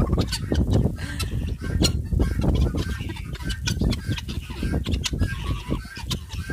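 Chickens clucking in short repeated calls over heavy wind buffeting the microphone during a blizzard.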